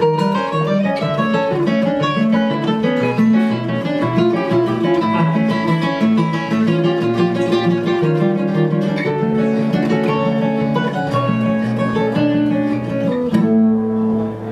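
Two acoustic guitars playing an instrumental duet, quick flatpicked runs over chords, ending on a held, ringing chord about thirteen seconds in.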